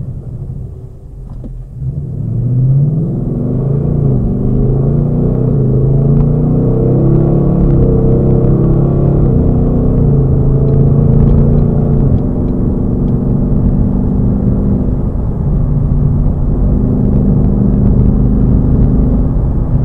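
Ford Mustang GT's 5.0-litre V8 heard from inside the cabin, pulling away and rising in pitch through several quick upshifts of its 10-speed automatic, then settling to a steady cruise.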